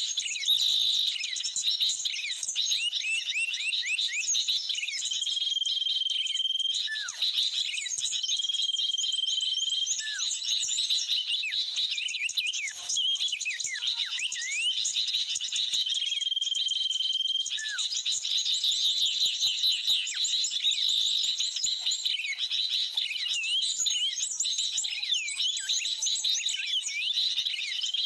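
A busy mix of bird calls: rapid chirping, short downward calls, and a flat whistle held for a second or so that comes back three times, over a steady high hum. It is typical of a bird-trapping lure recording of agitated sooty-headed bulbuls (kutilang) mixed with small birds, played from a speaker.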